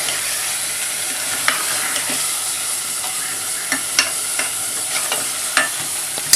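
Spiced masala frying in a pan while a spoon stirs it: a steady sizzle, with the spoon clicking and scraping against the pan now and then and one sharper knock near the end.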